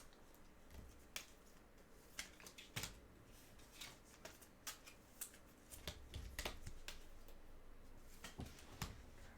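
Faint handling of trading cards: scattered light clicks and rustles, with a few soft knocks.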